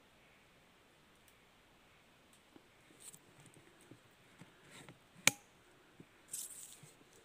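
A single sharp crack from a PCP air rifle about five seconds in, the loudest sound, among quieter clicks of the rifle being handled; a short rustling burst follows about a second later.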